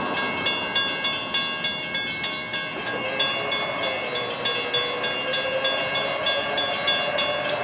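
Railroad grade-crossing warning bell ringing rapidly, about three strikes a second, each strike ringing on. This is the sign of an approaching train. A low steady tone joins about three seconds in.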